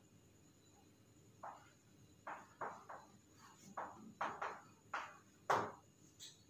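Chalk writing on a blackboard: a string of short, irregular scratches and taps as words are written, starting about a second and a half in.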